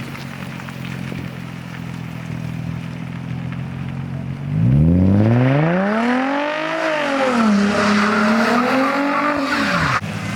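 Infiniti G35 coupe's V6 running low and steady, then about halfway through revving up hard, dipping and climbing again before falling off near the end. A rushing hiss of wheels spinning on snow rides over the revs.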